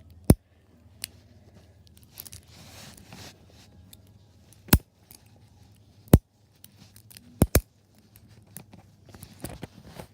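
Sharp clicks from an Andor suitcase padlock's key-and-lock mechanism as the key is turned to unlock it, a handful spread over several seconds with two close together about seven and a half seconds in. The lock is very stiff to turn.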